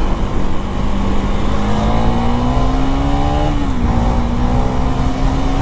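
KTM 390 Duke's single-cylinder engine pulling under acceleration, its note climbing steadily, dipping briefly a little past halfway, then climbing on, over a strong rush of wind and road noise.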